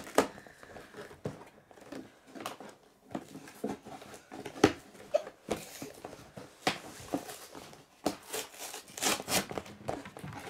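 Cardboard LEGO set box being handled and opened: scattered taps and knocks on the box, then a stretch of scraping and tearing near the end as the perforated end flap is pushed in and torn open.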